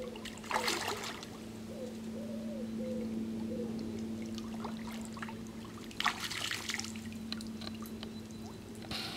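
Water trickling and splashing in two short bursts, about half a second in and again about six seconds in, over a steady low hum.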